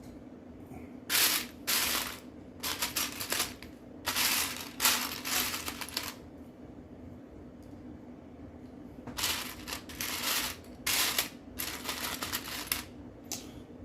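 Loose plastic Lego pieces clattering and clicking as a hand sifts through a pile of parts, in two spells of rattling with a quiet pause in the middle. A steady low hum runs underneath.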